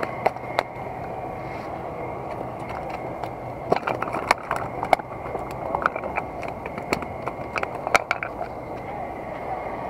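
Steady outdoor background hum with scattered sharp clicks and taps, most of them in the middle stretch.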